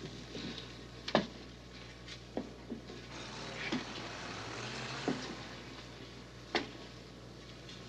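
Slow, measured footsteps of hard-soled shoes on a hard floor, about six sharp heel strikes roughly a second and a half apart, over a low steady hum.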